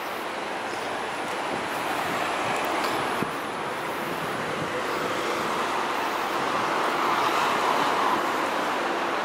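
City street traffic noise: a steady rush of passing vehicles that slowly builds and is loudest about seven to eight seconds in.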